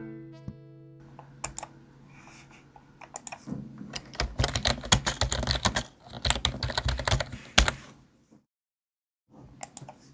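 Typing on a computer keyboard: quick runs of keystrokes with short pauses, a few last taps near the end. The last chord of a band's song dies away in the first second.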